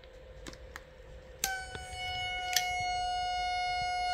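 Steady test tone from a radio transceiver keyed up to drive the amplifier for a power check. It comes on with a click about a second and a half in and holds one pitch, with another click a second later.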